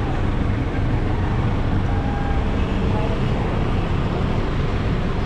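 Steady low rumble of city street traffic noise.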